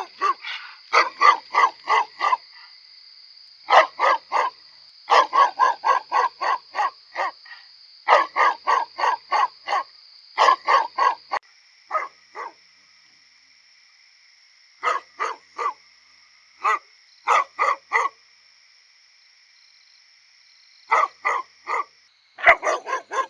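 Great Pyrenees livestock guardian dog barking in repeated runs of quick barks, about three or four a second, broken by pauses of a second or more: a guard dog's alert barking.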